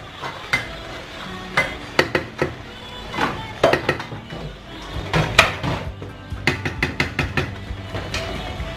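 A wooden spoon knocking and clinking irregularly against a cooking pot while the soup is stirred, the loudest knocks about five seconds in, with background music underneath.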